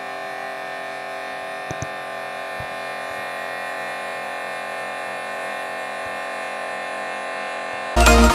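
High-pressure washer running steadily with an even motor hum and several high steady tones, supplying the water that drives the rotating solar-panel brush. Loud electronic dance music cuts in at the very end.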